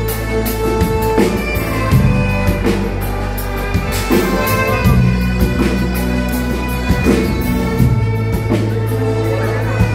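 Live band music with a violin playing among drums and held low bass notes.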